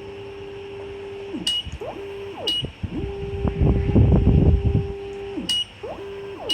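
Hybrid servo motors running in separate moves: a steady whine that rises in pitch as each move starts and falls as it stops, one long run and several short ones, as the axes step through a grid cutting pattern. Sharp clicks with a short high beep come between moves, and a low rumble is heard in the middle.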